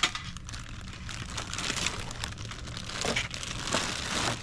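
A clear plastic bag crinkling and rustling in short, irregular rustles as hands open it and lift it out.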